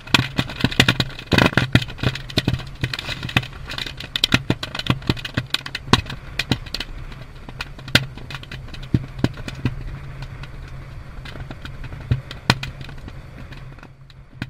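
A burning pile of unserviceable ammunition, including 20mm and 5.56 NATO cartridges, cooking off: rapid, irregular sharp pops and cracks over a steady low rumble, coming thick at first and thinning out toward the end.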